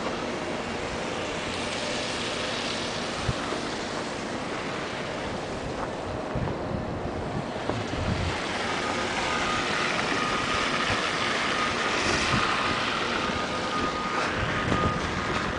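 Street traffic on a slushy, snow-covered street: tyres hiss as vehicles pass, swelling twice. A thin steady whine joins about halfway through.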